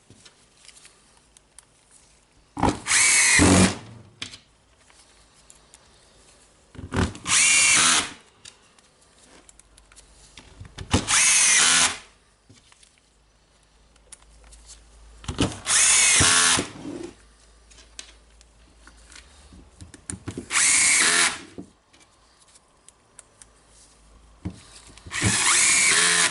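A power screwdriver driving the housing screws of a rotary hammer home, six short runs of about a second each, a few seconds apart.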